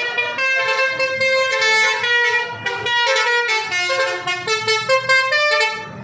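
Bus telolet horn: a city bus's musical multi-tone air horn playing a quick tune of changing notes, cutting off suddenly near the end.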